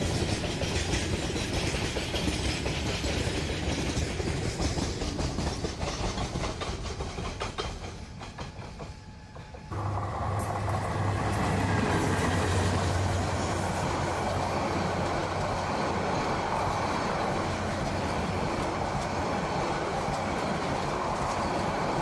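Trains passing on the line. First a freight train's wheels clatter along the rails. Then, after a sudden change about ten seconds in, a diesel locomotive passes close with a deep steady engine hum, followed by passenger coaches whose wheels clatter on the track.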